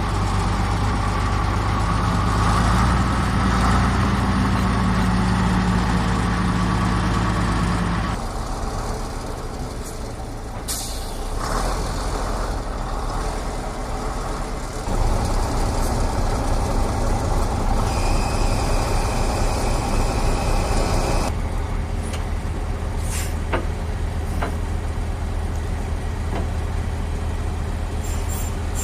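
Engines of heavy armoured vehicles running, tank recovery vehicles at work, across several shots cut together; the sound changes abruptly about 8, 15 and 21 seconds in.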